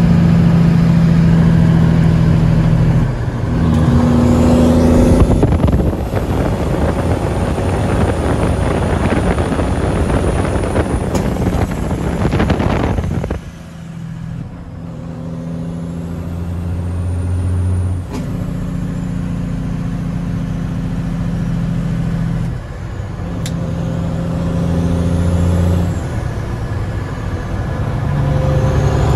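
1989 Peterbilt 379's big cam Cummins inline-six diesel pulling the truck along, heard from the cab. The engine note breaks off and builds back up about four times as the driver works through the gears, with a stretch of loud rough rushing noise over the engine in the first half.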